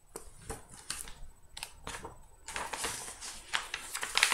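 A picture book handled close to the microphone as its pages are turned and it is closed: a few sharp clicks and taps, then a papery rustle from about two and a half seconds in.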